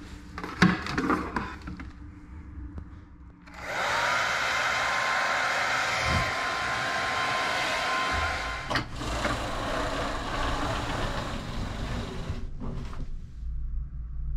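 A hair dryer is switched on a few seconds in. Its motor whine rises to a steady pitch under the rush of air and runs for about nine seconds, with a knock partway through, before it is switched off. A few light knocks and clicks come before it starts.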